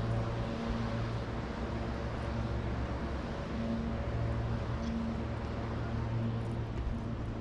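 City street ambience: a steady low engine hum from traffic, swelling and easing a little, over a wash of background noise.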